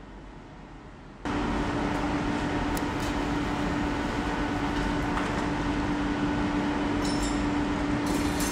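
Steady bakery machinery noise with a constant hum, starting suddenly about a second in, with a few light clicks on top.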